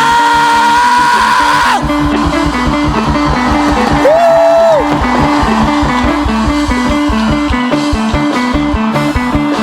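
Band music with guitar and bass over a steady beat. A long high note slides up and is held near the start, and a shorter one comes about four seconds in.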